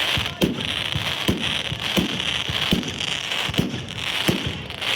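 Fireworks going off in a steady series of bangs, about one every three-quarters of a second, over a continuous crackling hiss.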